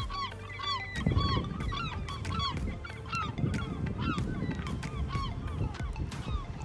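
A flock of gulls calling, many short arched cries overlapping one another. A low rumbling noise sets in about a second in.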